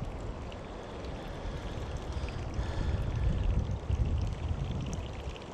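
Water sloshing and trickling, with uneven low rumbling from wind on the microphone.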